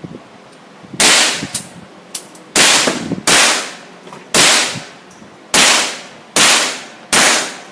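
Seven semi-automatic pistol shots fired at an uneven, deliberate pace, each crack trailing off in echo, with a few fainter clicks between them.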